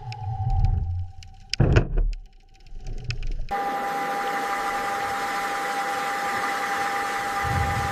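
Low rumbling thuds and a few clicks, then about three and a half seconds in a steady machine hum starts abruptly, with a high whine over a hiss.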